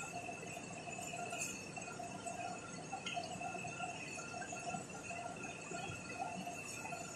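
Chicken pieces sizzling in a pot over a gas burner as they are stirred with a wooden spoon, over a steady faint high whine.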